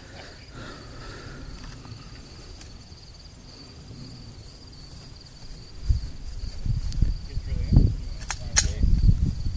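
Steady high-pitched drone of insects (crickets or katydids) in the grass. From about six seconds in, a louder low rumbling noise rises under it, and a single sharp crack sounds near the end.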